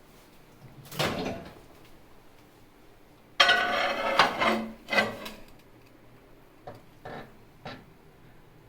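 Ceramic plates scraping and knocking as they are slid into a microwave oven: a short scrape, a longer, louder scrape, then three light knocks near the end.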